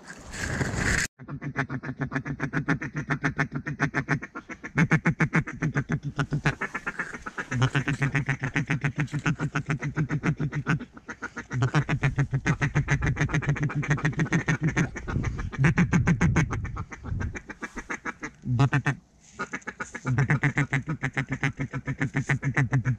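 Mallard-style duck call blown hard and close in long runs of rapid quacks and chatter, each run lasting a few seconds, with short breaks between.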